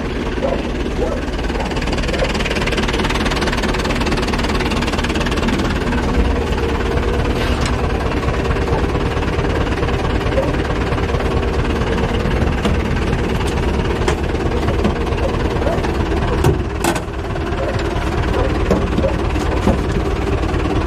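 Zetor 4011 tractor's four-cylinder diesel engine running steadily under way, heard from inside the cab. Two sharp knocks come about three quarters of the way through.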